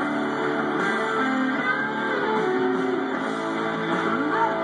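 Guitar-driven music played back through homemade speakers, continuous and steady in level, with little deep bass.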